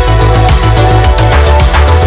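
Background music: an electronic track with a driving bass and a steady beat.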